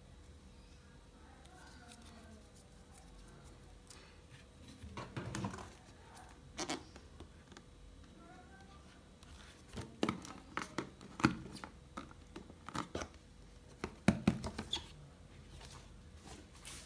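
Hands handling a MacBook Air's white power adapter and its molded packaging tray: a scattered run of light clicks, taps and rustles of plastic and packaging, busiest and loudest in the second half.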